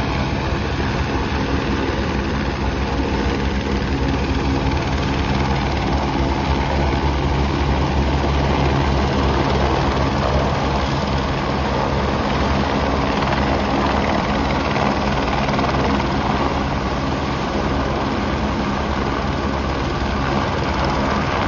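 Single-engine turbine helicopters of the Airbus AS350 Écureuil type running close by, rotors and engines loud and steady throughout.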